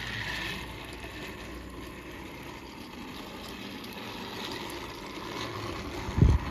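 Battery-powered toy train whirring steadily as it runs along plastic track, with a brief low bump near the end.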